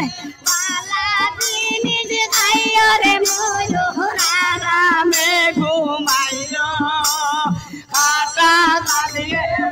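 Music: a Bengali folk song whose melody line moves in long, wavering, ornamented notes, sung with the backing music running underneath.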